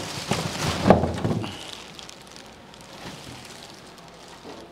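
Clear plastic bag crinkling and rustling around a drum shell as it is lifted out of its cardboard box. It is busiest in the first second and a half, then fainter.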